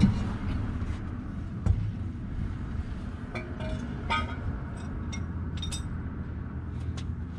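Hand tools working on the car underbody: a couple of sharp knocks, then a run of short ringing metallic clinks about midway, over a steady low rumble.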